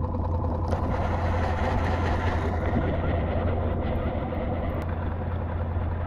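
Small outboard motor of a one-person skiff running steadily, a constant low drone. A brighter hiss rides over it for about two seconds, starting about a second in.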